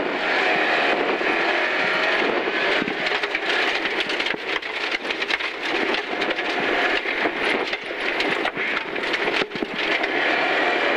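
Rally car engine working hard, heard from inside the cabin, its pitch rising and falling as the driver changes speed, over a steady rush of tyre and road noise with many sharp clicks and rattles of loose gravel striking the car.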